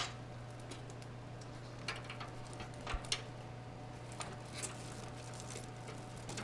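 Scattered light clicks and taps of power-supply cables and plastic parts being handled and tucked inside a computer case, over a steady low hum.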